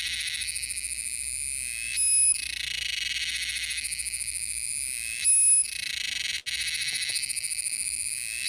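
An insect, which the filmer takes for a cicada, calling with a steady high buzz. A louder, shriller burst comes roughly every three seconds, three times.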